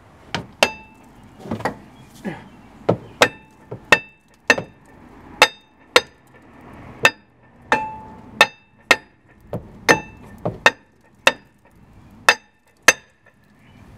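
A hammer repeatedly strikes a rusted-on rear brake rotor of a 2007 Mercedes ML350, about twenty sharp metal-on-metal blows at one or two a second, each with a brief ringing tone, to knock the rotor loose from the hub.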